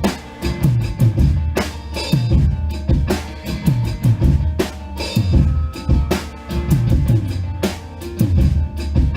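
Drum kit played in a steady groove, with kick drum, snare and cymbal hits, over a recorded song carrying sustained bass notes.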